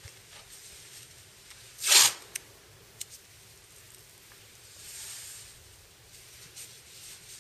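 White athletic tape pulled off the roll with one loud, short, zip-like rip about two seconds in, then a softer, longer peel around five seconds, with small taps and rustles as the stirrup strips are pressed along the ankle.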